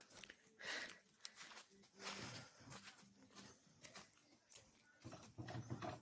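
Faint footsteps and rustling of leaves and brush as someone walks through forest undergrowth, in short irregular scuffs.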